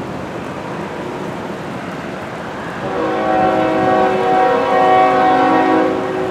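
Locomotive air horn sounding one long chord of several tones lasting about three and a half seconds, starting about halfway in, over steady rain.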